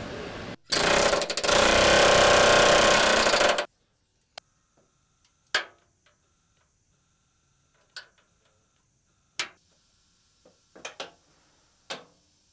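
Body-shop tooling working on a car body shell: a loud hiss lasting about three seconds, then a run of sharp metallic clicks and clanks, one every second or two.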